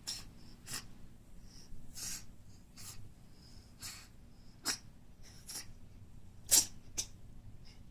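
Maine Coon cat sneezing again and again: a string of short, sharp sneezes, a few longer and breathier, the loudest one a little past two-thirds through. The owner wonders whether it is a cold.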